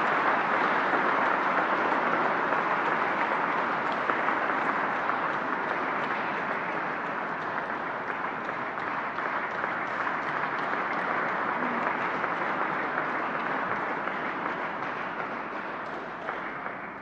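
Audience applauding, a steady dense clapping that slowly tapers off and fades near the end.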